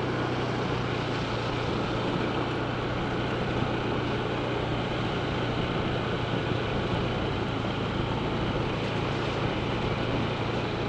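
Honda ADV 160 scooter's single-cylinder engine running steadily while riding, a constant low hum mixed with road and wind noise.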